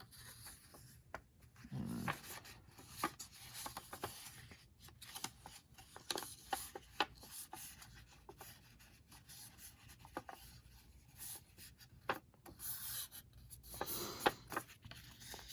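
Paper and small tools being handled at close range: faint rubbing and rustling with scattered light taps and clicks.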